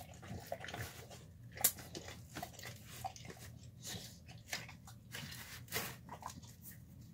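A dog eating a meal of chicken, apple and egg rice from a plastic tub: irregular chewing and crunching, with sharp clicks and one louder crunch a little over a second and a half in.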